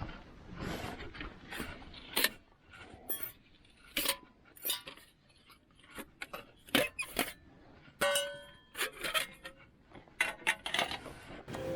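Camping gear being handled: a series of separate clinks and knocks of hard, metal items, a few ringing briefly, one of them clearly about eight seconds in.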